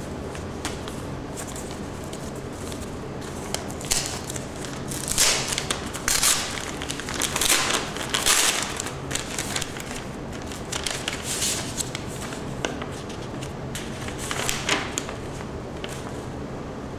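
A mailing envelope being opened and its papers pulled out and handled: irregular crinkling and rustling, densest in the middle, over a steady low room hum.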